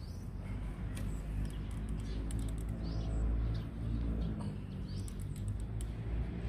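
Birds chirping in short, repeated sweeping calls, about five in a few seconds, over a steady low rumble, with a few faint clicks.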